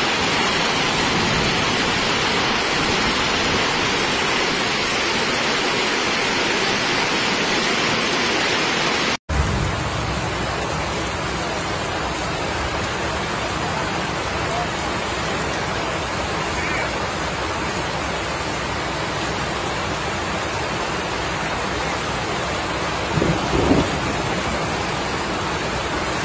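Heavy rain falling hard: a steady, dense hiss. About nine seconds in the sound drops out for an instant and comes back as closer rain falling on pavement. A couple of brief louder sounds come near the end.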